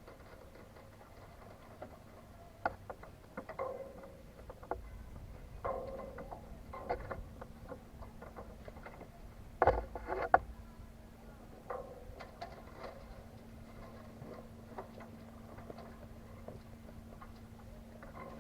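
Irregular light knocks and clicks of gear aboard a small sailboat, with a sharper cluster of knocks about ten seconds in, over a faint steady hum.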